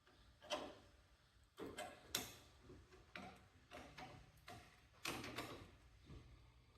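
Light clicks and knocks of lawn-tractor steering parts being handled and fitted, a scattered run of short taps about half a second to a second apart.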